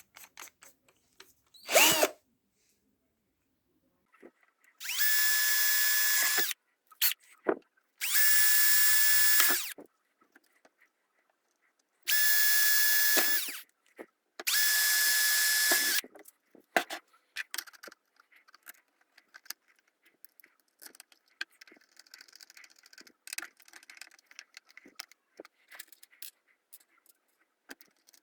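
Electric drill running in four short bursts of about a second and a half to two seconds each, the motor holding a steady pitch. A brief loud sound comes near the start, and light clicks and handling taps follow the bursts.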